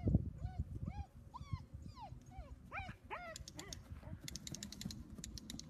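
A dog yipping and whining excitedly: about a dozen short high cries, each rising then falling in pitch, over the first three seconds. Then comes a run of quick, sharp clicks.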